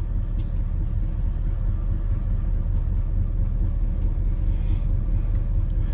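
Parked van's engine idling: a steady low rumble.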